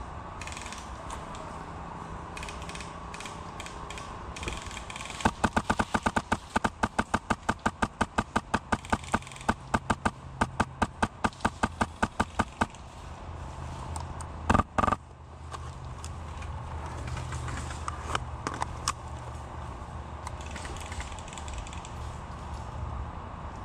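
Airsoft electric rifle firing a long string of rapid single shots, sharp clicks at about four a second with one brief pause, for roughly seven seconds; a couple of loud knocks follow about two seconds later.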